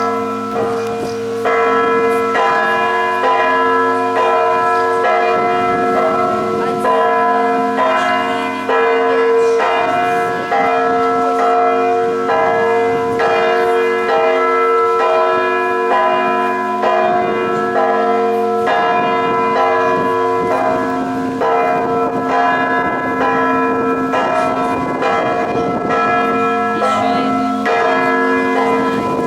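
Russian Orthodox monastery church bells ringing in a continuous peal. Many bells of different pitches are struck in quick, repeated succession over the steady hum of the larger bells.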